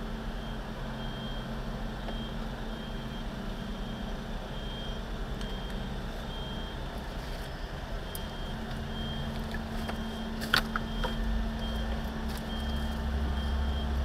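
Heavy truck diesel engine idling steadily while a backup alarm beeps regularly in the background. A single sharp bang rings out about ten seconds in, and the low engine rumble grows louder near the end.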